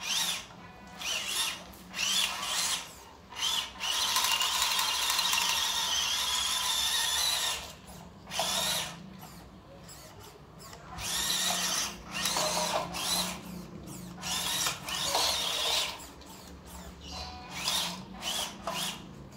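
Small electric motor and gear drive of a 4x4 RC military truck whining in repeated short throttle bursts, each rising in pitch as it starts, as it crawls over a dirt mound. About four seconds in there is one longer steady run of a few seconds.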